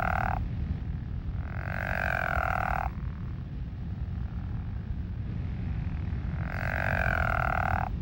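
Pickerel frog calling: a low, snore-like croak about a second and a quarter long. The tail of one call ends just after the start, a full call comes about two seconds in, and another comes near the end, over a steady low background rumble.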